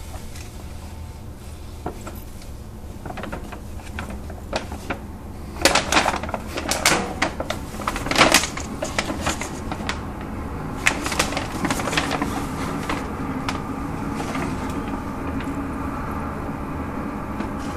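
Brown paper grocery bag crinkling and rustling in bursts as a cat shifts about inside it, loudest in the middle, over a steady low hum.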